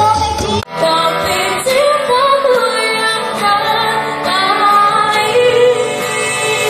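Music with a woman singing a melody over instrumental backing, with a brief dropout about half a second in.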